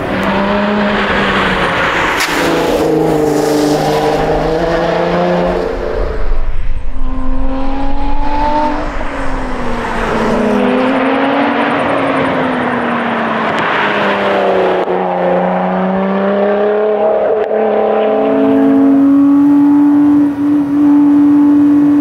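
Lotus Exige 410 Sport's supercharged 3.5-litre V6 driven hard, its note climbing under acceleration and dropping back several times with gear changes and lifts. For the last few seconds it holds a steady note as the car cruises at about 130 km/h.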